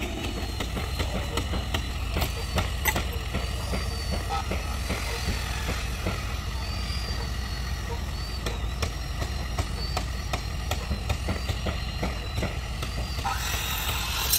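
Crane truck engine running steadily, with scattered knocks and clatter of work around it and a brief hiss near the end.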